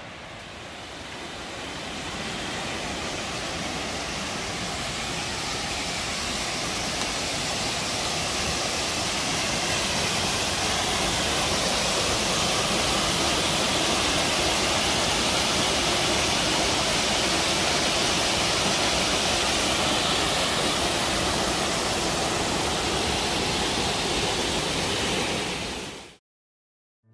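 Long Creek Falls, a waterfall, with the creek below it: a steady rush of falling and running water that grows louder over the first ten seconds or so, then holds. It cuts off abruptly near the end.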